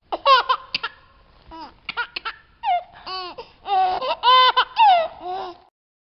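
High-pitched giggling laughter in a string of short squeals, stopping a little before the end.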